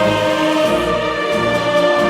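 Orchestral background music with sustained chords and a steady low pulse.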